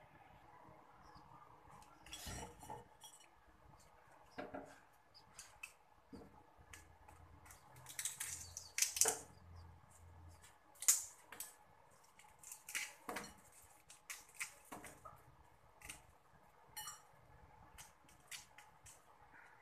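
Kitchen utensils clinking and knocking against stainless steel: a dozen or so short, sharp clicks and clinks at irregular intervals, the loudest around the middle.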